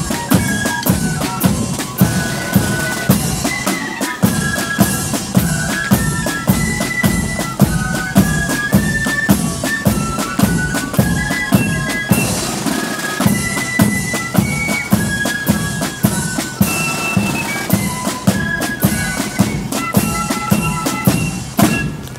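Marching flute band playing a tune on flutes over side drums and a bass drum beating a steady march rhythm.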